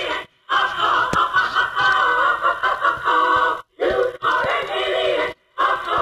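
A warbling, voice-like sound that bends in pitch, like altered singing or a made-up voice. It cuts to silence abruptly three times, briefly each time.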